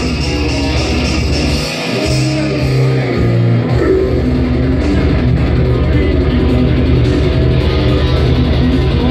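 Live heavy metal band playing loud: distorted electric guitars and bass over fast, pounding drums. About two seconds in, the drums drop out for a couple of seconds of ringing guitar and bass notes, then the full band crashes back in.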